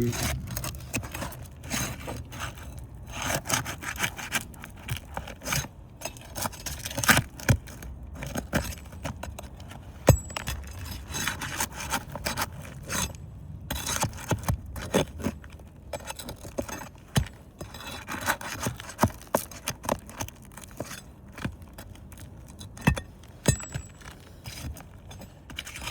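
Metal pry bar scraping, rubbing and knocking against roof shingles and roofing nails in irregular strokes, with a few sharp knocks, as rusted nails are worked out from under the shingle.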